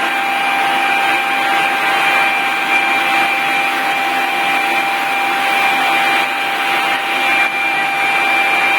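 Leaf blower running steadily at full blast, a constant rush of air with a steady high whine, used to blow-dry hair.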